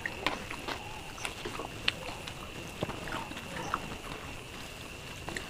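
Fingers squishing and mixing cooked rice with dal on a banana leaf: soft wet squelches and irregular sticky clicks, with one sharper click about two seconds in. A faint steady high whine runs underneath.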